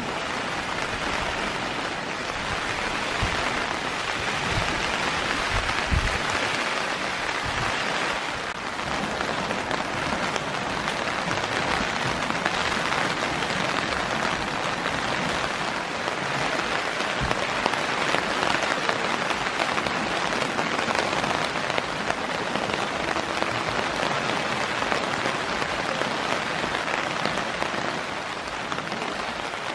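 Heavy rain falling steadily on tent and gazebo fabric overhead, a dense, even patter. A few low thumps sound in the first several seconds.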